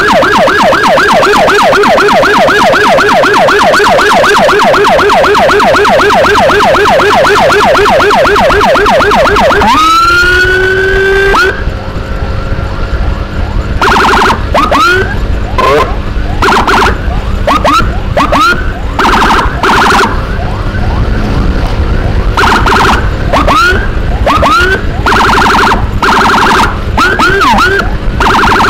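Electronic emergency siren sounding a fast warble for about ten seconds, then a rising wail that cuts off. After that it gives repeated short rising chirps and brief steady horn-like blasts, over a low rumble of engine and road noise.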